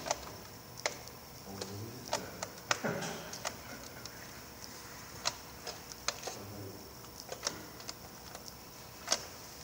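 Irregular sharp clicks and taps of fingers and small parts against hard plastic trays, one every second or so.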